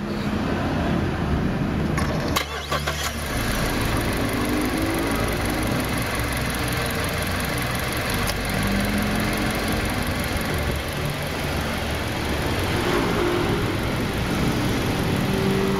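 Car engine starting and then idling steadily, heard close to the alternator and drive belt (fan belt) just sprayed with grease to cure its squeal.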